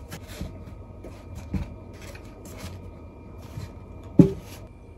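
Handling sounds of lunch packing: cloth rustling as a bento box is wrapped in a furoshiki, with soft knocks of containers on the counter and one sharper knock about four seconds in as a container is set down. A faint steady high tone runs underneath.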